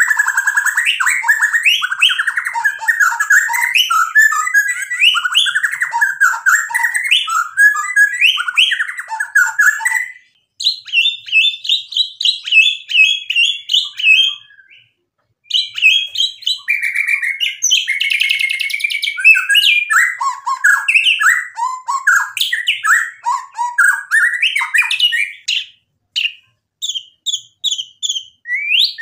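White-rumped shama singing a long, fast, varied song of rich whistles and rapid chattering notes, with two brief pauses partway through. Near the end it gives a run of short, separate high notes.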